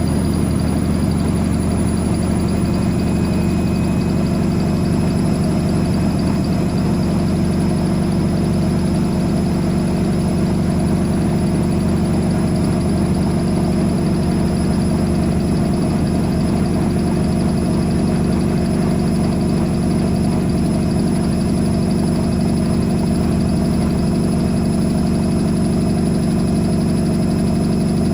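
Whirlpool AWM 864 Aquaprogramm front-loading washing machine running steadily, its motor giving a constant hum with no pauses or changes in speed.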